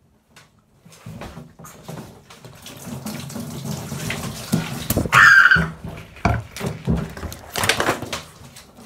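Water splashing and sloshing in a bathroom sink as a wet puppy is scrubbed and struggles, with many short splashes. A brief, louder, higher-pitched sound comes about five seconds in, and a burst of splashing follows near the end.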